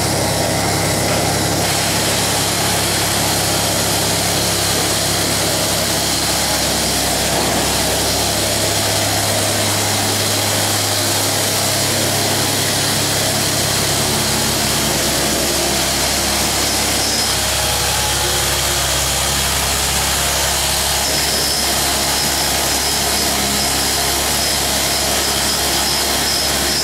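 Steady mechanical running noise with a low hum, like machinery or a power tool running without a break.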